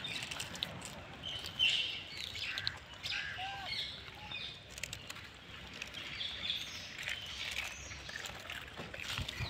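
Birds chirping in short, scattered calls over a faint outdoor hiss.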